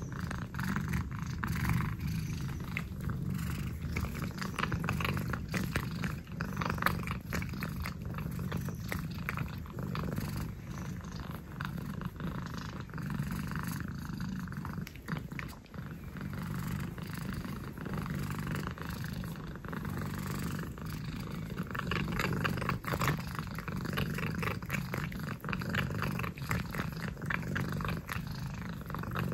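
Exotic shorthair cat purring steadily while it is scratched on the head. Quick soft clicks and rustles run over the purr, from the cat licking the air and the fingers working through its fur.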